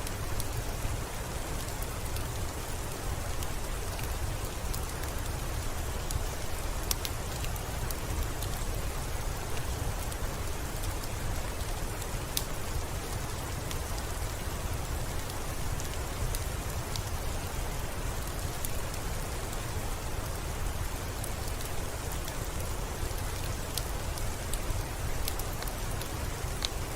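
Steady rain falling, an even hiss with a low rumble underneath and scattered sharp ticks of single drops striking a surface.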